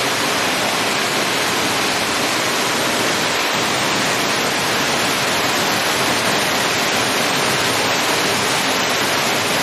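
Steady rush of stream water tumbling over rocks in a small cascade.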